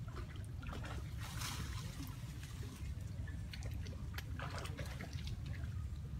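Small splashes and trickling water from a monkey swimming through floodwater, with a brief louder splash about a second and a half in, over a steady low background noise.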